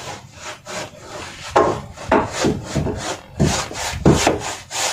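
A paintbrush stroking paint onto the wooden wall of a boat's cabin: repeated dry, scraping swishes of bristles on wood, unevenly spaced at roughly two strokes a second.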